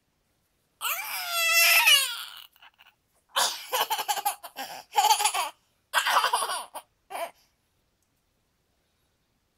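Young girl laughing hard: a high, wavering squeal about a second in, then a run of choppy bursts of laughter that stops about seven and a half seconds in.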